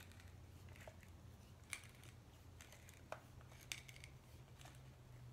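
Hand-cranked pepper mill grinding peppercorns: faint scattered crunching clicks, a few sharper than the rest, over a low steady hum.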